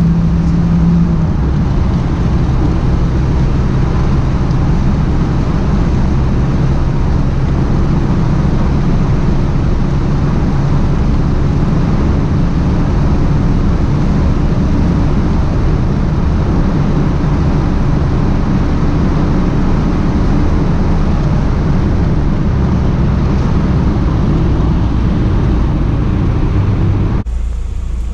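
Toyota Celica GT-Four ST165's turbocharged four-cylinder and road noise heard from inside the cabin, the car cruising at a steady speed; a steady engine tone at the start drops away about a second in. About a second before the end the sound cuts abruptly to a quieter, duller one.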